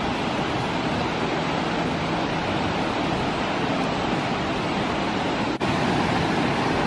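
Water pouring steadily over a wide concrete weir below a dam during a flash release, making a continuous rushing. About five and a half seconds in it breaks off for an instant, then resumes a little louder as river water rushing over a low weir.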